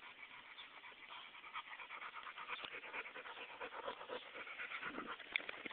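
Dog panting in quick, breathy strokes, with one sharp click near the end.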